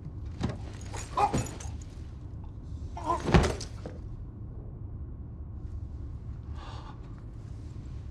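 A few knocks about half a second and a second in, then a heavy thud about three and a half seconds in, the loudest sound, all over a steady low train rumble.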